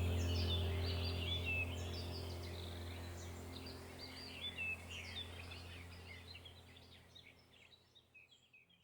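Many small birds chirping over a low steady drone, the whole sound slowly fading out to nothing by the end.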